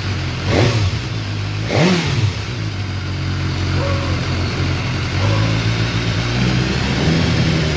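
BMW S1000R inline-four engine breathing through an Akrapovic HP4 exhaust, blipped twice with the throttle about half a second and two seconds in, each rev rising and falling quickly, then settling to a steady idle with small lifts in revs.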